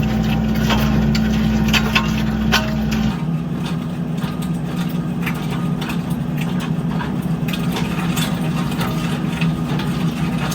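Skid steer engine running steadily while it drills fence-post holes with an auger, with scattered knocks and clanks. The engine note changes abruptly about three seconds in.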